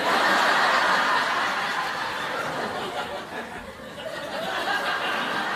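Studio audience laughing, loudest at the start and dying down over the next few seconds.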